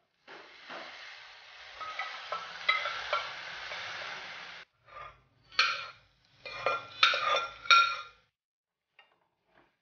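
Wet mashed leafy greens sizzling as they go into hot oil tempering in a kadai, with clicks of a metal spoon against the pan. The sizzle cuts off suddenly about halfway through, followed by a few short bursts of the spoon stirring and scraping the kadai.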